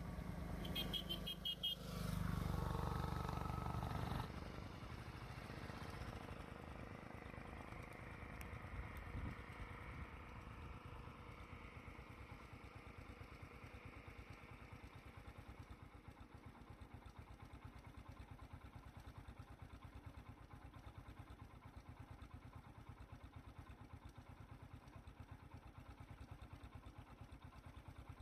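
A three-wheeler auto-rickshaw's small engine passes close, loudest in the first four seconds, then fades away. A low engine keeps puttering steadily after it.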